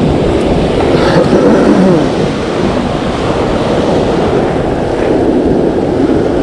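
Steady rush of breaking ocean surf, with wind buffeting the microphone.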